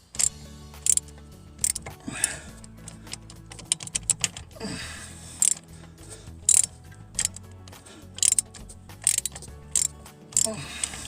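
Socket ratchet clicking in short bursts, about one every half second to a second, as spark plugs are worked on a Ford industrial engine, over faint background music.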